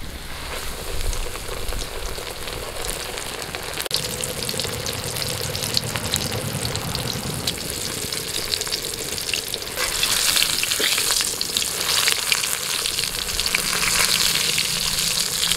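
A whole pomfret coated in semolina and rice flour deep-frying in hot oil in a kadai: a steady sizzle dotted with crackles, growing louder about ten seconds in.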